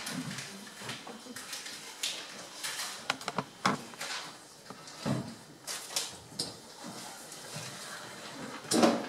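Props being handled on a stage floor: scattered light clicks, knocks and rustling, with a quick cluster of clicks a few seconds in and a louder bump near the end.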